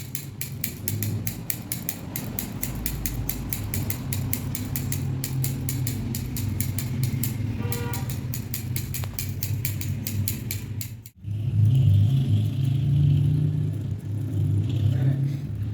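Barber's scissors snipping in a fast, even rhythm of about five cuts a second over a steady low hum. About eleven seconds in the snipping cuts off abruptly and a louder low rumble, like passing traffic, takes over.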